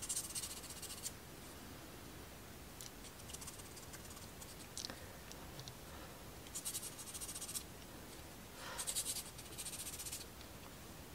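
A thin wooden model-kit part being sanded by hand, several short bursts of quick back-and-forth rubbing strokes of sandpaper against the wood to smooth the edges where it was cut from its sheet.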